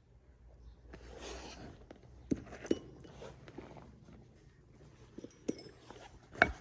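Scuffing and shuffling with about five light, sharp knocks and clicks of parts being handled, two of them close together a little over two seconds in and a few more near the end.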